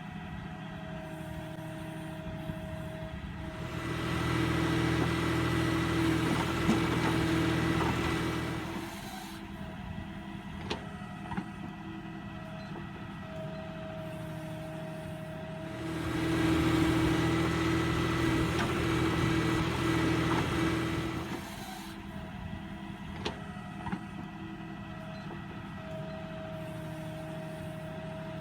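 Tractor-mounted backhoe loader's diesel engine running, rising to a louder, heavier note for about five seconds twice and dropping back to idle between, as the hydraulics take load on each dig-and-load cycle. A few short clanks in between.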